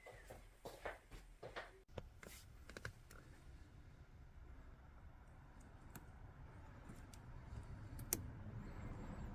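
Faint scattered clicks and light handling knocks, bunched in the first few seconds with a single sharp click near the end, over a low rumble that slowly grows louder.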